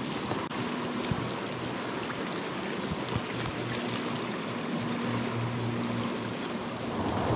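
Stream water rushing steadily over a river run, with a faint low hum that comes and goes and a few light ticks.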